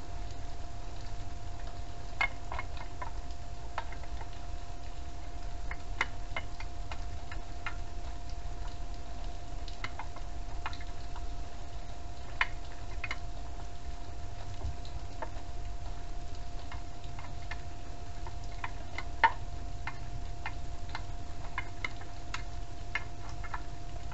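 Irregular light clicks and ticks of hand tools working at a bolt, some in quick clusters and one louder click late on, over a steady low rumble and a constant faint tone.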